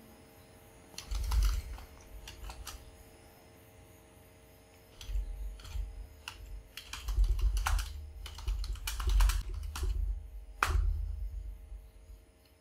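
Typing on a computer keyboard: a short run of keystrokes about a second in, then a longer, uneven stretch of typing from about five seconds in until near the end.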